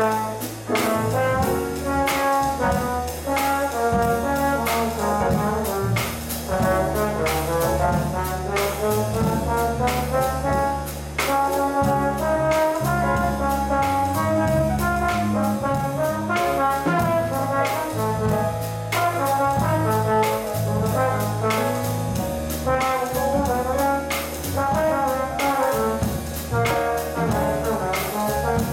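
Small jazz combo playing live, with the trombone carrying the melody over piano, electric bass and a drum kit keeping steady time on the cymbals.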